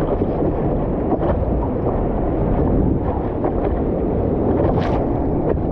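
Steady wind and surf rumble on a board-mounted GoPro's microphone, with ocean water sloshing and splashing against a surfboard. A brief sharper splash comes about five seconds in.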